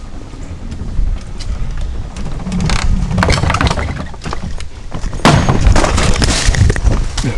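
Mountain bike rattling and clattering over the wooden slats of a ladder bridge and teeter-totter, then a loud crash about five seconds in as bike and rider fall off the wooden teeter-totter, followed by a few more heavy knocks.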